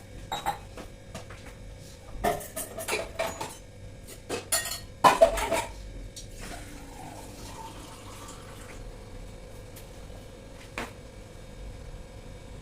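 Kitchen dishes and utensils clattering: a run of sharp clanks in two clusters, the loudest about five seconds in, then a quieter stretch with one more click near the end.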